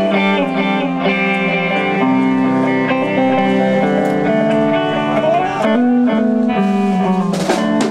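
Live rock band: an electric guitar plays sustained, ringing notes and chords through amplifiers. Drum hits come in near the end.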